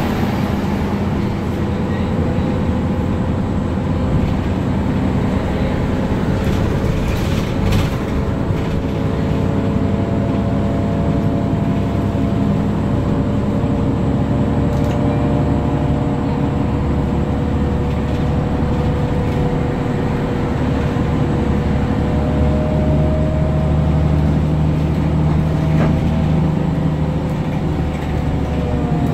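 Inside the cabin of a 2007 New Flyer D60LFR articulated bus under way: its Cummins ISM diesel and Allison B500R six-speed automatic transmission run at a steady speed, giving a steady drone with a few held tones. The tones start to drop near the end.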